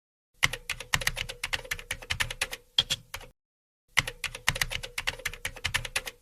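Rapid keyboard typing: quick clicks, several a second, in two runs of about three seconds each with a short pause between them.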